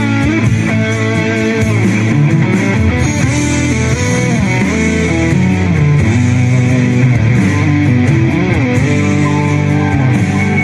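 Instrumental rock background music led by an electric guitar playing sustained, bending notes over a bass line.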